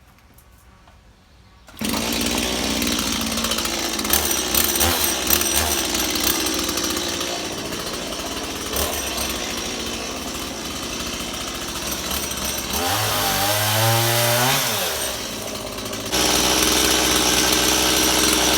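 Chainsaw running at full throttle, cutting up fallen willow oak limbs; it comes in abruptly about two seconds in. Around two-thirds of the way through, the engine drops toward idle and revs back up, then runs flat out again.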